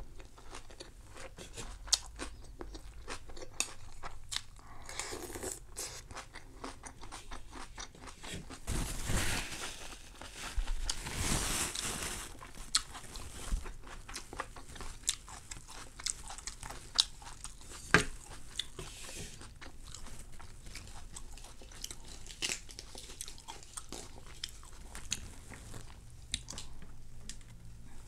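Close-up crunching and chewing of crispy rice pancake (banh xeo) eaten with fresh vegetables: irregular crisp bites and crackles throughout. A longer rustling, crunching stretch comes about nine to twelve seconds in.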